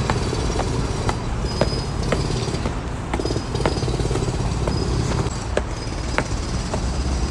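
Footsteps of a person walking, light ticks about two a second, over a steady low rumble.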